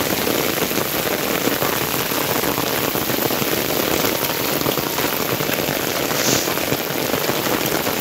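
Heavy rain pouring steadily onto a stone-paved street, a dense, even patter of drops with no letup.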